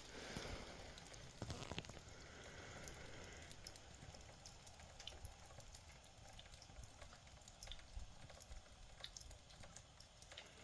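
Near silence: faint outdoor ambience with scattered soft ticks and rustles, a few more of them about one and a half seconds in.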